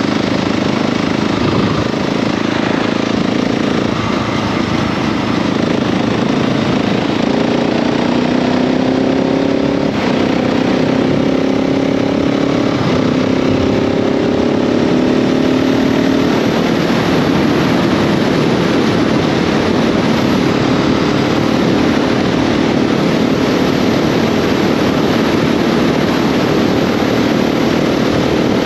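KTM 690 SMC R (A2-restricted) single-cylinder engine pulling the bike along under the rush of riding wind. From about eight seconds in, the engine pitch climbs steadily for several seconds as the revs rise, then levels off into a steady rush.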